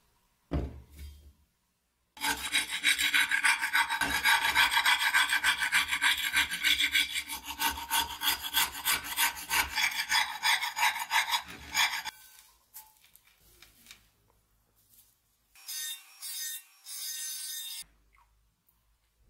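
A metal scraper blade scraping caked, crusty grime off an old frying pan in rapid repeated strokes for about ten seconds, after a single knock near the start. A second, shorter burst of rasping follows after a pause.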